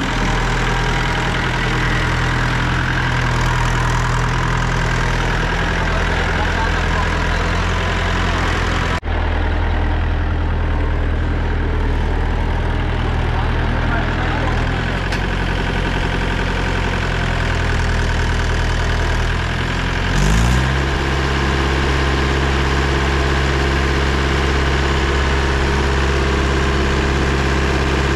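Mahindra 575 DI tractor's four-cylinder diesel engine running steadily under load. About two-thirds of the way through it revs up briefly, then settles into a steady, heavier run as the hydraulic tipping trailer is raised to dump its load.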